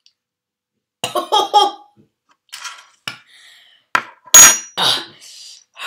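A boy's short pained vocal sounds, about a second in, from the burn of a spoonful of Tabasco sauce. Then a spoon and dishes clatter, with a sharp knock about four seconds in that is the loudest sound.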